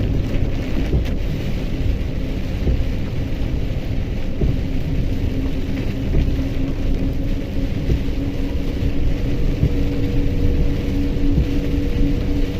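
Mercedes-Benz Axor 2644 truck's diesel engine running under way, heard as a steady low rumble with a constant droning tone, together with road noise in the cab.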